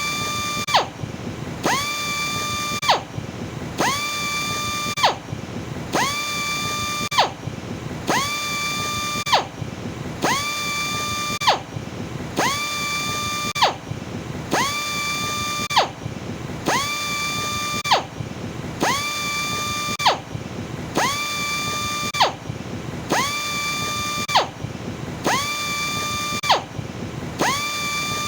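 Electric sander motor whining in a repeating cycle about every two seconds: a short loud burst, a quick rise to a steady high whine, then a brief drop before the next cycle, about fourteen times over.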